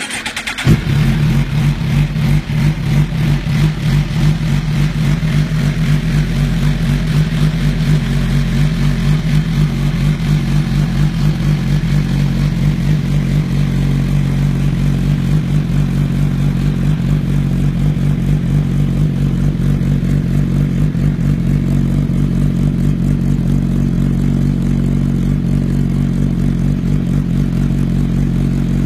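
Suzuki GSX-R1000 inline-four fired up through a short aftermarket slip-on silencer: it catches with a quick rise in revs about a second in, runs a little unevenly for several seconds, then settles to a steady idle.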